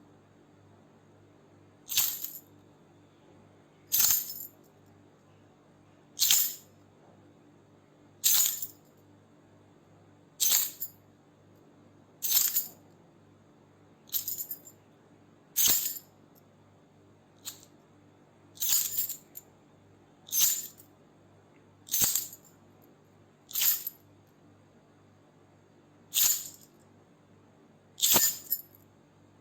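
A bunch of keys shaken in short jingling bursts, about one shake every two seconds, over a faint steady low hum.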